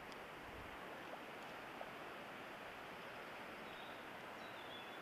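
River water flowing steadily, an even rushing, with two faint clicks about one and two seconds in.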